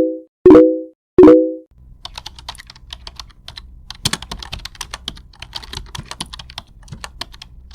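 A few short, loud, pitched blip tones in the first second and a half, then about six seconds of rapid, irregular clicking that sounds like keyboard typing over a faint low hum.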